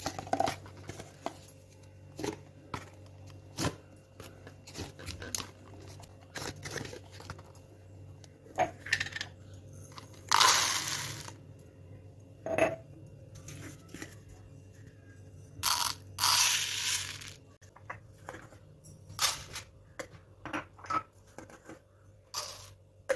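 Glass spice jars, their plastic lids and clear plastic cups clinking and knocking as they are handled and set down on a tiled counter. Twice, for about a second each, a rushing patter of dry seeds poured out of a jar into a plastic cup.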